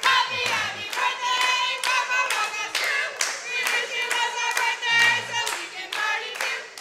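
Cheerleaders clapping in a steady rhythm, about two to three claps a second, while chanting a cheer together in high voices.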